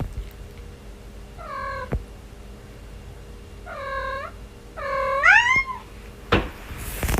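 Cat meowing three times, the third call longer, its pitch rising and then falling. A short knock follows near the end.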